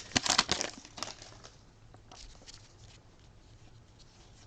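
Crinkling and crackling of a baseball card pack wrapper being handled and torn open, dense for the first second or so, then dying away to faint, occasional rustles.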